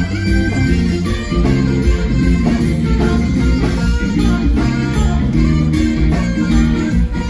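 A live band playing an instrumental passage, with guitar in front over bass.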